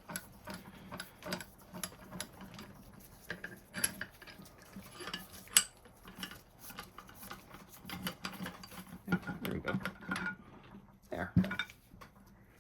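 Metal tools and parts being handled on a workbench: a run of irregular clinks, clanks and knocks, busiest around the middle and again near the end.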